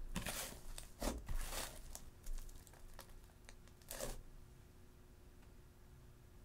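Hands squeezing and pulling thick fluffy butter slime mixed with clay and shaving cream: a run of short, sticky crackling and tearing squishes. The last comes about four seconds in, as a hand presses into the slime and pulls out.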